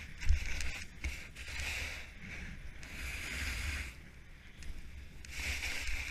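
Skis hissing and scraping over packed, chopped-up snow, rising and falling in swells through the turns, over a low wind rumble on the action camera's microphone. A sharp knock about a third of a second in is the loudest moment.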